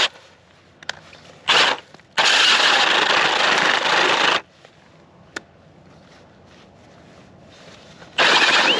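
Milwaukee cordless drill spinning a K-Drill ice auger into pond ice. It runs in bursts: a short one about a second and a half in, a longer one of about two seconds, and another near the end, with quiet stretches and a few faint clicks between them.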